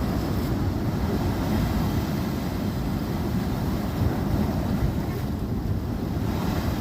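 Ocean waves washing on a beach, a steady low rumble of surf mixed with wind buffeting the microphone.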